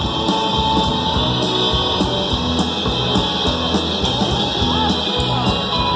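Live rock band playing an instrumental passage with no vocals: guitar over bass and drums keeping a steady beat.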